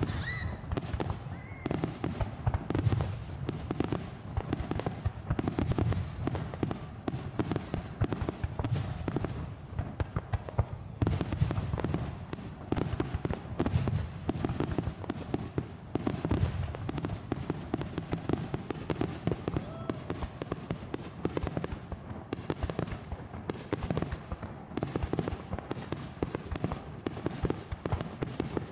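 Aerial fireworks bursting in a rapid, continuous barrage of booms and crackle, with hardly a pause between the reports.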